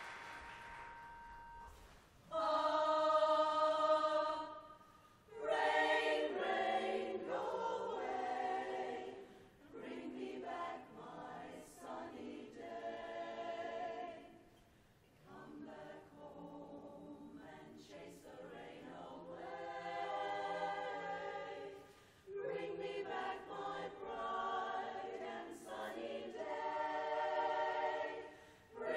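Applause dying away, then a women's chorus starting to sing a cappella in harmony about two seconds in, in short phrases with brief pauses between them.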